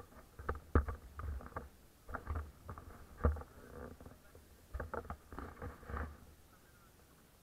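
Handling noise from a small action camera being turned in the hand: irregular clusters of knocks and rubbing thumps on the microphone, stopping about six seconds in.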